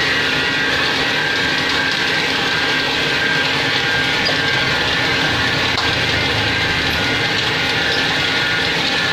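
PVC shrink-film printing machine running steadily, its copper printing cylinder turning against a rubber roller as the film feeds through: an even mechanical noise with a few steady high tones that does not change.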